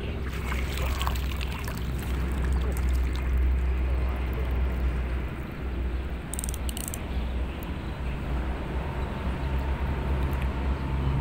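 Strong wind buffeting the microphone in a steady low rumble, over water sloshing around a wading angler. A brief crackle comes about six seconds in.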